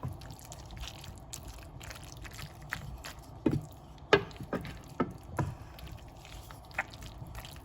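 A utensil moving through creamy sauced pasta in a pan, with wet stirring sounds and scattered soft clicks and taps against the pan.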